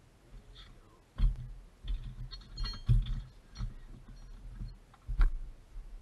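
Handling noises inside a car: a run of plastic trim and parts clicking and knocking, with dull thuds, as parts are worked by hand. The sharpest knocks come about a second in, near three seconds and just after five seconds.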